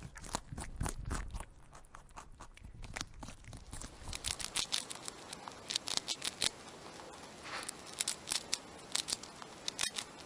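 A white dwarf hamster nibbling and chewing food: rapid, irregular, crisp crunching ticks from about four seconds in, preceded by softer, duller crackles.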